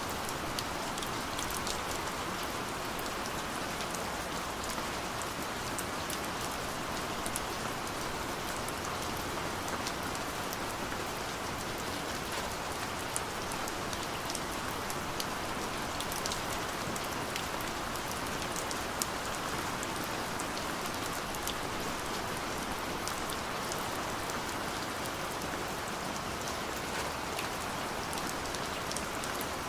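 Steady rain falling on a surface, a constant hiss of rain with many scattered individual drop ticks.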